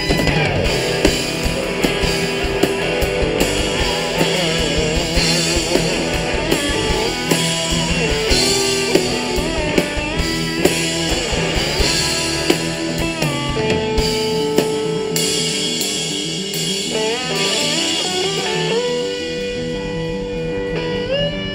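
Live rock band playing an instrumental passage: electric guitar and long gliding slide notes from an electric dobro over bass and a drum kit. The drumming thins out in the second half while the held, sliding notes carry on.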